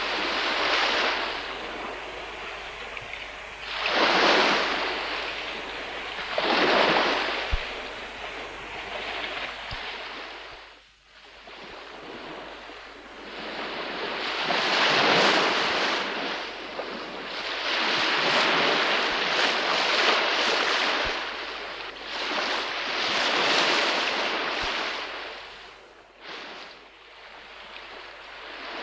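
Sea waves breaking and washing up on a shore, a hissing surf that swells and fades every few seconds, with a brief lull about eleven seconds in.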